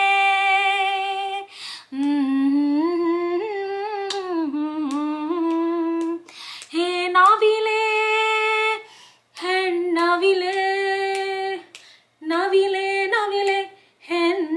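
A woman singing a slow tune to a baby, in five long held phrases with short pauses for breath between them.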